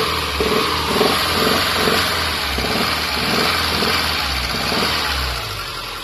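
Subaru 2.5-litre naturally aspirated flat-four engine held at raised revs with a popping knock repeating about twice a second, then dropping back about five seconds in. The popping was traced on teardown to a badly damaged #5 thrust main bearing.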